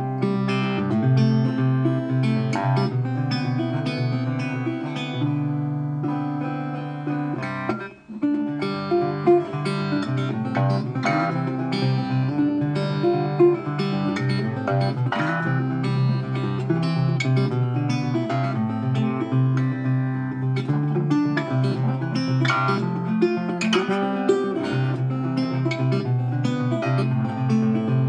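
Guitar music with plucked and strummed strings playing continuously, with a brief break about eight seconds in.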